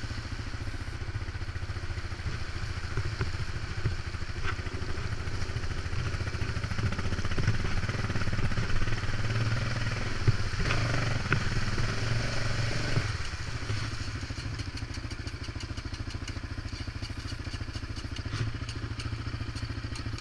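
Yamaha Raptor 700 quad's single-cylinder engine running as it drives through standing water on the trail, with water splashing and a few knocks about ten seconds in. About thirteen seconds in the engine note drops and settles to a lower, steadier running as the quad slows.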